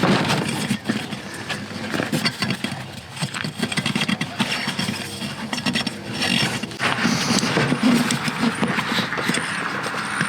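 A rubber inner tube being worked by hand into a riding mower tire: irregular rubbing, scraping and knocking of rubber against rubber and the wheel, joined by a steadier rustling hiss about seven seconds in.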